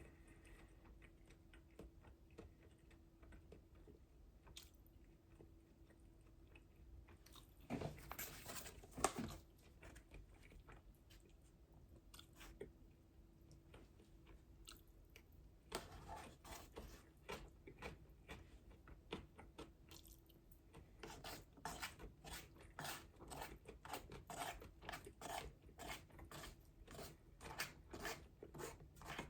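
A person chewing and crunching food close to the microphone. A loud crunching bite comes about eight seconds in. Later the chewing turns into a steady run of crisp crunches, about two a second.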